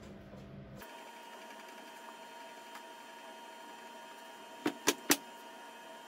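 Laundry being handled on a metal clothes drying rack: three quick clicks or knocks about a quarter second apart, a little past halfway, over a faint steady hum.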